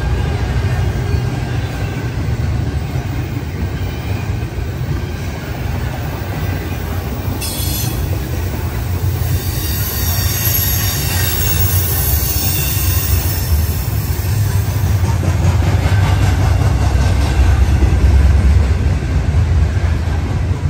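Double-stack container freight train rolling past: a steady low rumble of wheels on rail. About seven seconds in, a high-pitched wheel squeal sets in, is strongest for several seconds, then fades.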